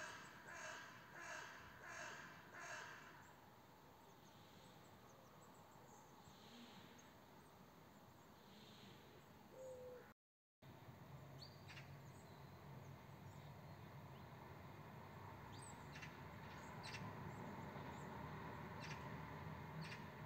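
A bird calls four times in quick succession at the start, each call a short harsh cry. Then a quiet outdoor background with a few faint short chirps, broken by a brief moment of silence about halfway.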